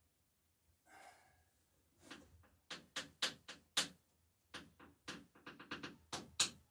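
An irregular series of light knocks and clicks, starting about two seconds in and coming faster near the end.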